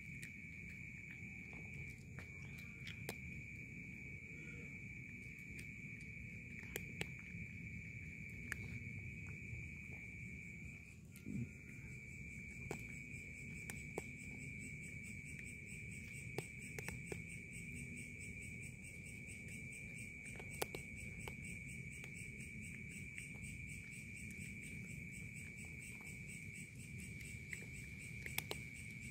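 Crickets trilling steadily in one unbroken high note. Sharp clicks every few seconds come from a cat crunching dry kibble.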